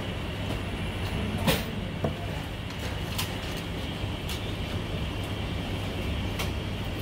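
Chinese cleaver striking a wooden chopping block as it cuts marinated goose: a handful of sharp, separate knocks, the loudest pair about half a second apart near the start. They sound over a steady low background rumble.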